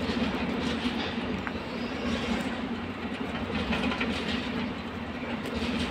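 Freight train of flat wagons loaded with new trucks rolling past: a steady rumble of wheels on rail with occasional faint clicks.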